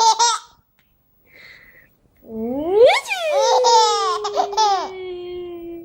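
A baby laughing: a short burst of giggles, a pause with a quick breath, then a long high squeal that rises, breaks into choppy laughter and trails off in a slowly falling tone.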